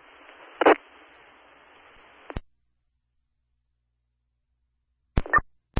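Fire department radio scanner feed between transmissions. Open-channel static hiss with one short loud burst under a second in cuts off with a click after about two seconds. Dead silence follows, then two brief key-up clicks near the end.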